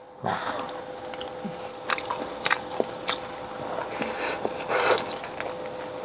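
Close-miked biting and chewing of food: wet smacks and sharp crackly bites at an irregular pace, the busiest stretch between about four and five seconds in, over a faint steady hum.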